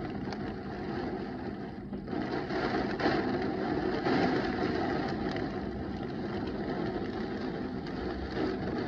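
Heavy thunderstorm rain pouring down with gusting wind, a steady rushing noise that swells a couple of seconds in.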